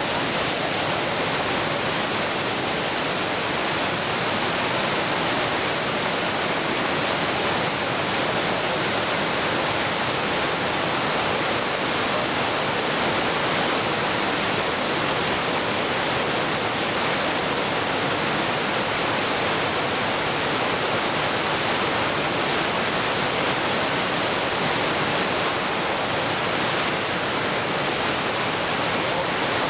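A waterfall: the steady, even rush of falling water.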